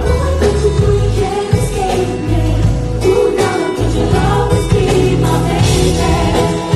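Live pop concert music: a woman singing over a band with a strong bass line.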